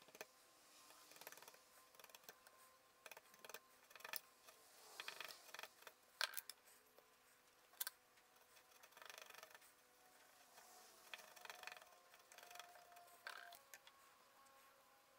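Faint scraping of a chisel paring a small wooden block: several short strokes, with scattered light clicks and taps between them.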